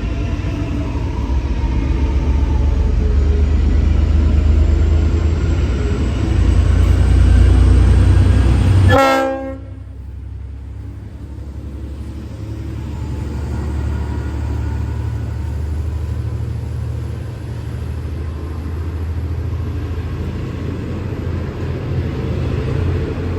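V/Line N class diesel locomotive running past with a heavy low rumble. About nine seconds in comes one short blast of its Leslie RS5T multi-chime horn. The level then drops sharply, and a quieter train rumble carries on.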